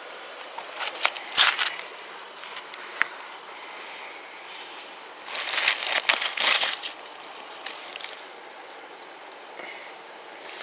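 Night insects chirring steadily, with two spells of rustling and scuffing, about a second in and again around the middle.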